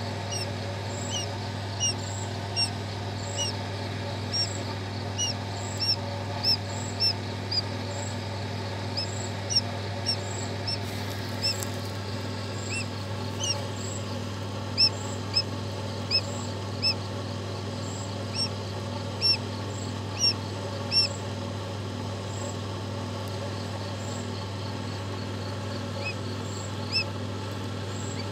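A newly hatched quail chick peeping: short, high chirps repeated irregularly, in quicker spells of one or two a second with pauses between. A steady low hum runs underneath.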